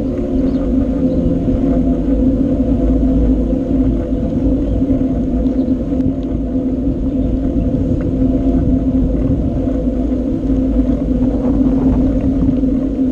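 Wind rumbling on the microphone of a camera riding along on a bicycle, with a steady hum from the ride.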